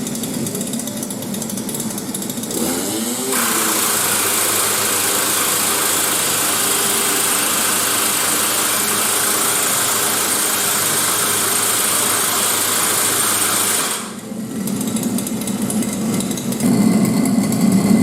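Vessel GT3500GE two-stroke gasoline impact wrench running: its engine revs up about three seconds in into a loud, even, high-pitched running for about ten seconds, then drops back to a lower speed and revs again near the end.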